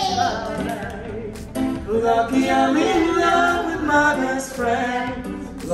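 Singing with nylon-string acoustic guitar accompaniment, the voice holding sustained notes with a short break about one and a half seconds in.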